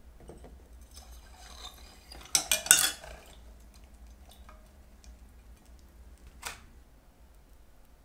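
Crumpled aluminium foil and metal being moved in a glass jar of electrochemical silver-cleaning solution. Faint rustling comes first, then a quick run of sharp clinks against the glass about two and a half seconds in, and a single clink near six and a half seconds.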